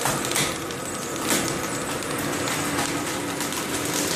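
Corn-puff extruder running: the motor-driven compression screw gives a steady mechanical hum over a hiss, with a few sharp clicks.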